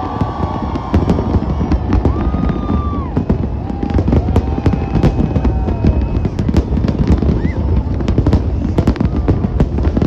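Fireworks going off in a dense, continuous barrage of bangs and crackles, with no break.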